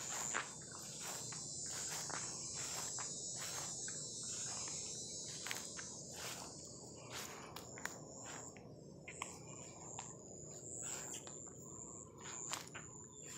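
Insects trilling in a steady high-pitched chorus that breaks into separate pulses about two-thirds of the way in, over the regular footsteps of someone walking on grass.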